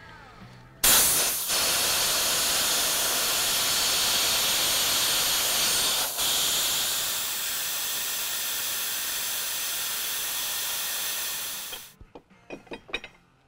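Compressed air blowing in a loud, steady hiss that starts abruptly about a second in and cuts off near the end, air-cooling a steel knife blade fresh out of the heat-treat oven. A few light crinkles and clicks follow it.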